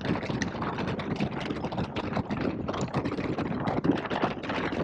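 2021 Indian Scout Bobber's V-twin engine running on the move, with wind noise on the microphone.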